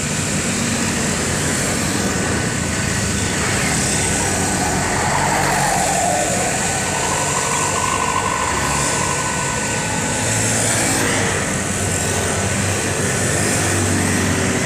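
Heavy construction machinery running: a steady diesel engine hum with a hiss over it and a faint whine that rises and falls in the middle.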